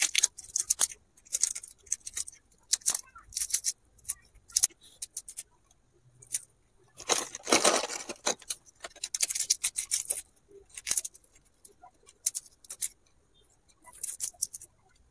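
Crisp ridged Lay's potato chips being snapped and crushed by hand over a small bowl, in short scattered crackles, with a longer rustle of the plastic chip packet about halfway through.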